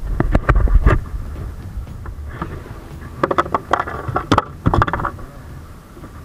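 A freshly landed tuna knocking and thumping against a fibreglass boat as it is hauled aboard, loudest in the first second, then rapid bursts of knocks on the deck about three and four to five seconds in.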